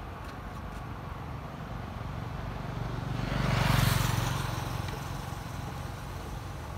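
A motor vehicle driving past on the road, growing louder to a peak a little past halfway and fading away again, over a steady background hum.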